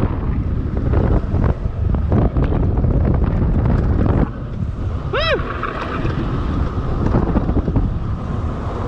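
Wind buffeting an action camera's microphone on an electric bike ridden at about 27 mph, a heavy low rumble that eases somewhat about four seconds in. One short chirp that rises and falls in pitch sounds about five seconds in.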